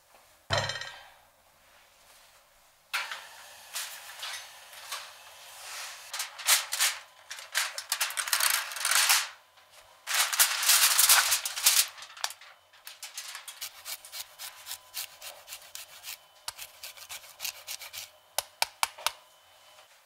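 A metal pan set down with a thump about half a second in, then aluminium foil crinkling as it is handled, in loud bursts that ease off into lighter crackles and clicks near the end.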